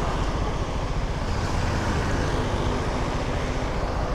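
Motorcycle riding noise: a KTM Duke 390's single-cylinder engine running under steady wind rumble on the camera's microphone, with road traffic around it.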